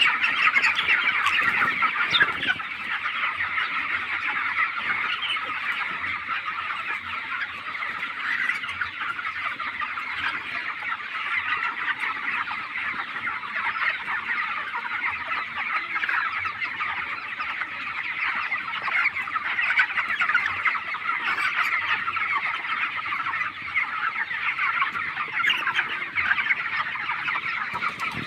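A large flock of 25-day-old broiler chickens calling all at once: a dense, steady chorus of overlapping cheeps and clucks.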